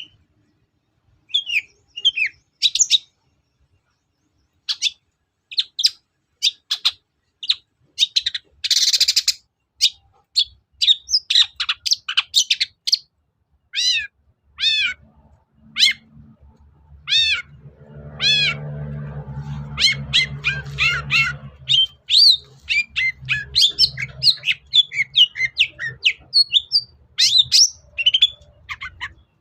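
Long-tailed shrike (cendet) singing: a quick, irregular run of sharp chirps and arched whistled notes, with one harsh rasping note about nine seconds in. A low hum runs underneath for a few seconds midway.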